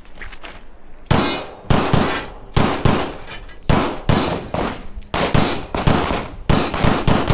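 CZ Shadow 2 9mm pistol fired rapidly, about a dozen shots mostly in quick pairs, starting about a second in.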